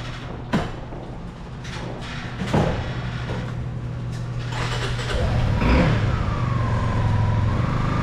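Motorcycle engine idling steadily while a metal garage door rises, with a couple of sharp knocks early on and, from about five seconds in, a louder steady whine over the engine.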